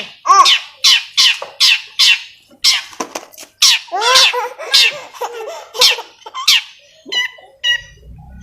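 Long-tailed shrike (cendet) calling: a rapid series of harsh, scratchy calls about two a second, each falling in pitch. Near the end the calls turn into a few short, higher chirps.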